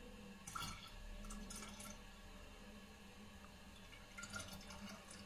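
Faint irregular dripping of water, in two short spells, over a low steady hum.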